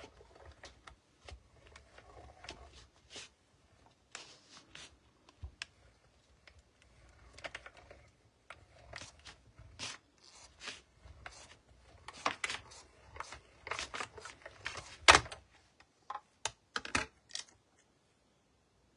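Manual die-cutting machine being cranked by hand, the plates with a snowflake die and cardstock passing through the rollers, with irregular clicks and knocks; the loudest knock comes about 15 seconds in.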